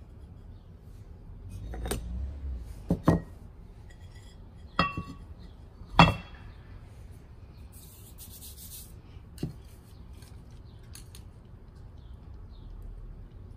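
Unglazed terra cotta pot and saucer knocking and clinking as they are lifted apart and set down on newspaper: a handful of separate knocks, the loudest about six seconds in.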